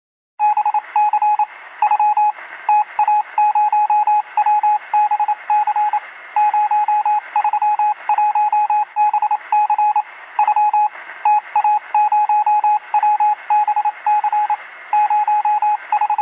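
Morse code sound effect: a single high radio tone keyed on and off in quick runs of short and long beeps over a bed of radio static hiss, starting about half a second in.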